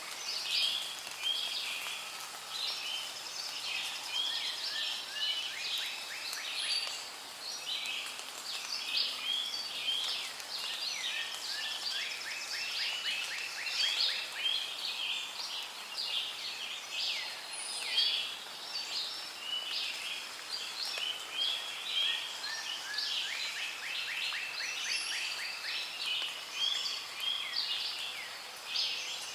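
Rainforest ambience: a dense chorus of many birds chirping and calling over one another, with rapid trills now and then.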